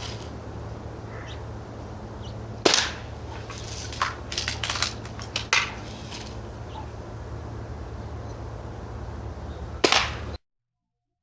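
Sharp cracks of BB guns firing: single shots about three and four seconds in, a quick cluster of several a moment later, and one more near the end, over a steady low hum. The sound cuts off abruptly just before the end.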